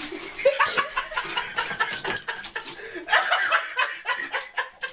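A person laughing in short, choppy bursts.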